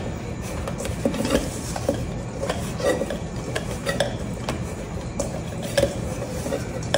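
Hands kneading sticky bread dough in a stainless steel mixing bowl: the dough squishes and the bowl gives irregular knocks and scrapes as it is pushed about.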